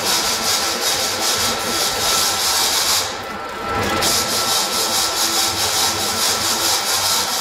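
Steady rasping, hissing machine noise with a faint steady whine underneath; it drops away for about a second around three seconds in, then resumes.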